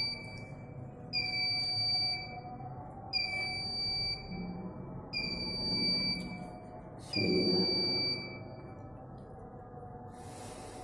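Electronic beeping: a clear, steady beep about a second long repeating every two seconds, each dropping slightly in pitch as it ends, over a low hum. The beeps stop about nine seconds in.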